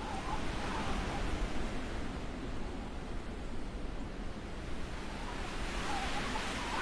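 Steady wind noise in the open during a snowstorm, an even hiss with a low rumble underneath.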